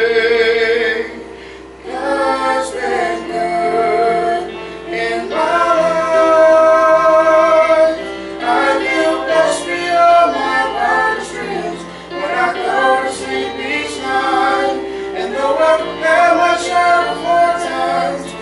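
A man and a woman singing a gospel song together as a duet, with long held notes.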